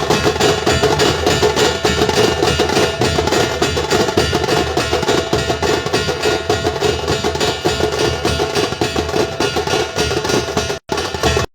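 A dhol-tasha troupe playing: big dhol drums under the rapid, cracking strokes of tasha drums, in a dense, loud rhythm. The sound drops out for two short moments near the end.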